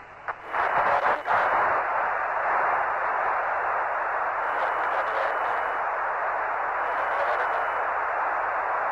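Radio static on the Apollo lunar module's air-to-ground voice channel: a few clicks near the start, then a steady hiss.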